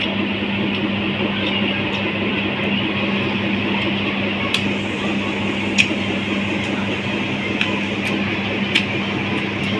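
A steady background hum and hiss with a few sharp clicks, one about halfway through and two more later.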